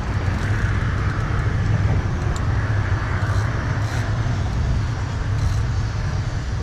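Steady low outdoor rumble with a hiss above it, holding an even level throughout, with no distinct event standing out.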